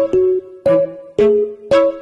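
Background music: a bouncy tune of short notes that start sharply and die away, about two a second.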